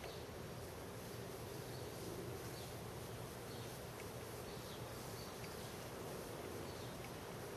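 Outdoor city background: a steady hum with faint, short high chirps now and then.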